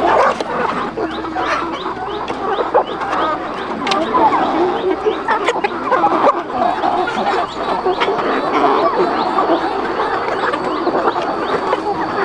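A large flock of chickens clucking and calling all at once: a dense, unbroken chatter of many overlapping bird calls.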